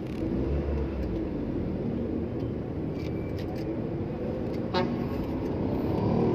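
Steady engine and road noise heard from inside a moving car, with a short horn toot about three-quarters of the way through.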